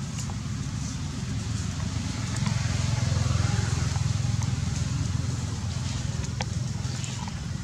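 A low motor rumble that swells about two and a half seconds in and then eases off, with a few faint clicks over it.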